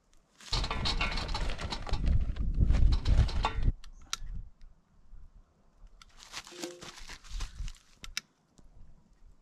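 Dense rattling clatter from getting a charcoal grill going, such as handling charcoal and the grill: one loud run of about three seconds starting half a second in, and a shorter, quieter one about six seconds in, with scattered small clicks between.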